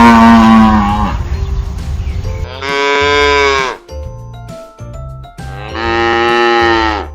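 Cow mooing: three long calls, the first already under way at the start, the others about three seconds apart.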